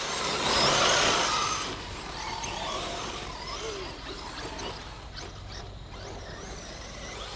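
RC race trucks launching off the start line: a loud burst of motors spinning up and tyres throwing dirt in the first second or two, then settling into the steadier whir of the trucks running around the dirt track.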